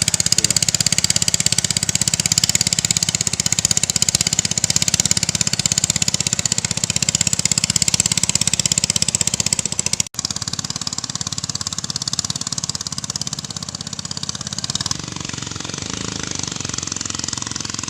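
Small single-engine motorboat running with a fast, even knocking beat while heavily loaded. The sound breaks off abruptly about ten seconds in, then runs on somewhat quieter.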